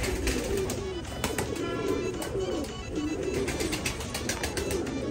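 A flock of domestic pigeons cooing together in overlapping calls, with scattered sharp clicks from the birds pecking at grain.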